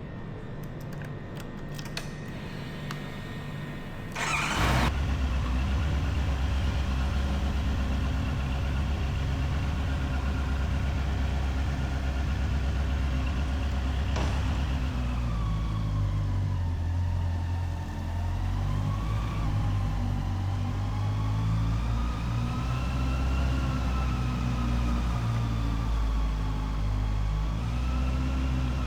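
Honda CBR650R's inline-four engine starting with a short burst about four seconds in, then idling steadily. From about fifteen seconds in, the engine speed rises and falls repeatedly.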